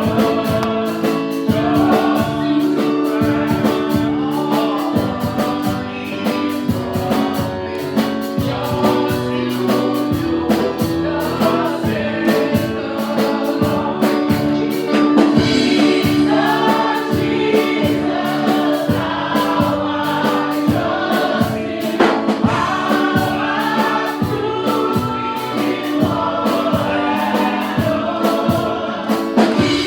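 Gospel praise and worship music: a choir singing over a band with a steady drum beat.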